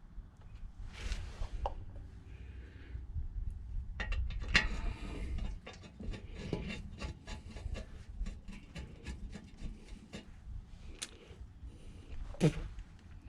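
Close-up hand-handling noises: rubbing and scraping with a quick run of light clicks, loudest in the middle stretch, and a sharper click near the end.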